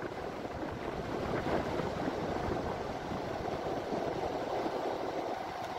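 Steady wind noise rushing over a phone's microphone during a fast downhill longboard ride, mixed with the rolling rumble of the board's wheels on asphalt.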